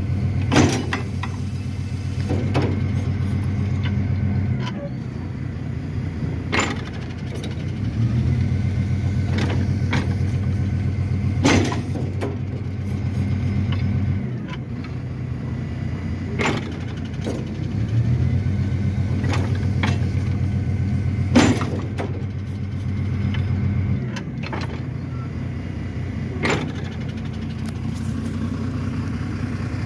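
Mercedes-Benz Econic garbage truck's diesel engine running, its drone growing louder for several seconds at a time, three times, as the hydraulic rear bin lifter is worked. Sharp metal clanks come from the lifter mechanism about every five seconds.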